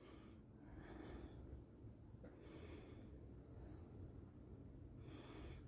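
Near silence: room tone with four faint, soft hissing sounds coming every second or so.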